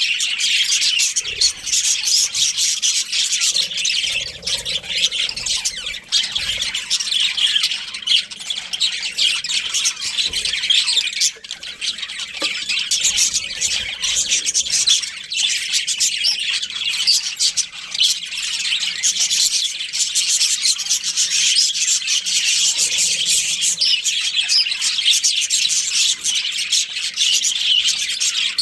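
Budgerigars chirping and chattering, a dense, unbroken stream of high chirps and squawks.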